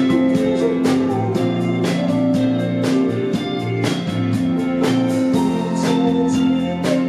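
Band music: electric or acoustic guitar over sustained low notes, with drums keeping a steady beat.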